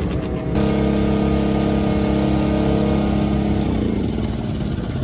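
Motorcycle engine running at a steady pitch. It comes in suddenly about half a second in and drops away just under four seconds in, over a constant low outdoor rumble.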